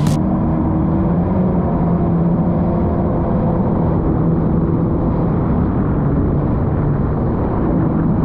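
Jet ski engine running steadily at speed, with a rush of wind and water noise.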